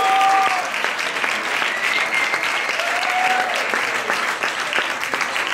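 Theatre audience applauding, a dense steady clapping that eases off slightly toward the end.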